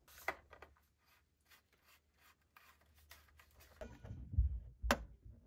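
Faint scratching and small clicks of handling, then a few dull thumps and one sharp metallic snap near the end as a knockout is pushed out of a steel breaker-panel enclosure.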